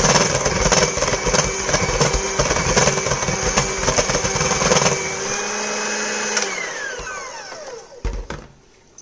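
Electric hand mixer running, its beaters churning cake batter with eggs in a stainless steel bowl, with a rattling of the beaters. A little past halfway it is switched off and its whine falls away, then there is a knock as it is set down on the counter.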